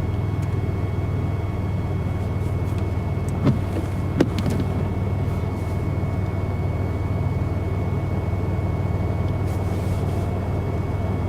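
A steady low machine hum with a faint high whine over it, broken by two brief clicks a few seconds in.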